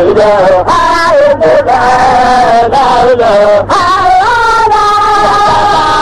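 Chanting voice holding long, wavering sung notes with brief breaks between phrases, loud throughout.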